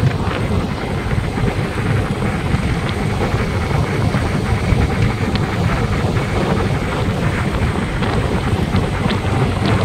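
Steady low rumble of wind and road noise from a vehicle moving along a highway, with wind buffeting the microphone.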